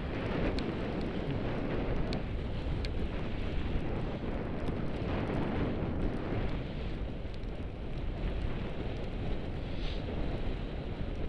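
Blizzard wind buffeting the microphone: a steady, rough low rush, with a few faint ticks.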